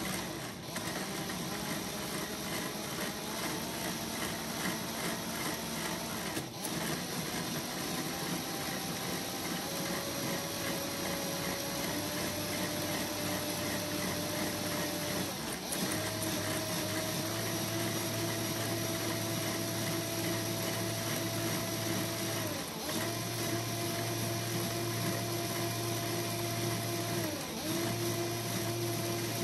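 Lego Technic motor-driven twin-cam engine model and 8-speed gearbox running: plastic gears and pistons clatter steadily over an electric motor whine. The whine steps up in pitch several times as the speed is raised, and dips and recovers twice near the end.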